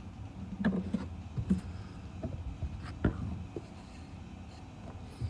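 Faint handling noise as switch wiring and connectors are worked by hand: a few light clicks and rubs over a low steady hum.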